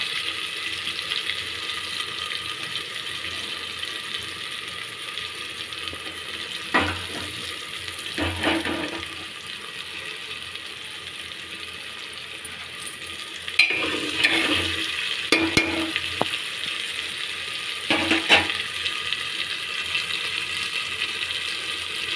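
Ginger paste and ground spices frying in hot oil in a pressure cooker: a steady sizzle, with a spoon stirring and knocking against the pot a few times.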